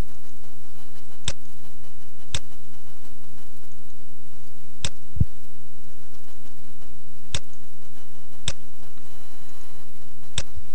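Computer mouse clicking six times, one to two and a half seconds apart, with one duller knock near the middle, over a steady low electrical hum.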